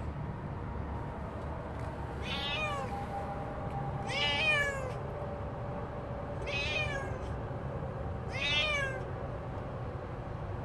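Grey tabby domestic cat meowing four times, about two seconds apart, each meow short and falling in pitch.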